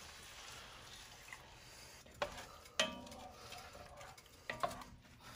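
Cold milk poured into a hot pot of roux and sautéed vegetables, with a faint sizzle, then a wooden spatula stirring and knocking against the enamelled Dutch oven a few times, one knock ringing briefly.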